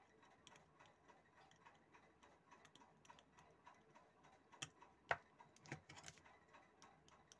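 Near silence with faint small clicks and a few sharper taps about four and a half to six seconds in: metal tweezers touching the LED chips on an opened LED bulb's board as each LED is checked in turn, and the plastic housing being handled.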